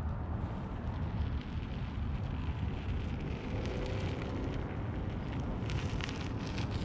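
Steady low rumble of wind on the microphone, with a faint rising whine around the middle as a Onewheel electric board rolls up the concrete path and passes close near the end.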